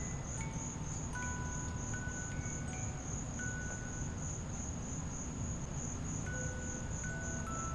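A steady chorus of insects trilling in a high, pulsing band. Scattered single chime-like notes at different pitches ring over it, each held up to about a second, above a low steady rumble.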